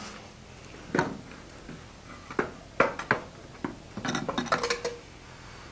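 Scattered light metallic clinks and knocks of steel tools and bar stock being handled in a blacksmith's shop: single strikes about a second apart, then a quick rattling cluster about four seconds in.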